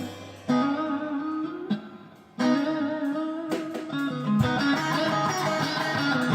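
Guitar playing ringing chords in phrases, with brief breaks about half a second and about two seconds in.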